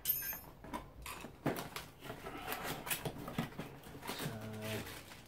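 Rustling and irregular clicks and knocks of packaging and parts being handled while the laser cutter's water pump is taken out to be looked at, with a short low hum about four seconds in.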